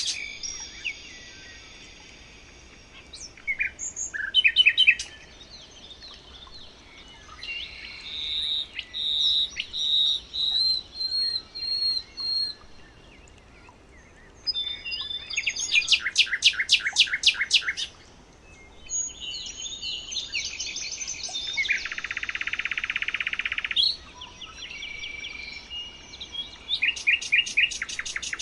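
Songbirds singing in a string of separate phrases: fast trills of evenly spaced high notes, a series of clear whistled notes, and a harsher buzzy stretch lasting a couple of seconds, with short pauses between phrases.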